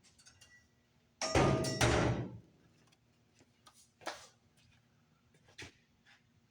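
Metal-on-metal clanks from tools working on a diesel engine block: two heavy knocks with a short ringing about a second in, then a few lighter taps.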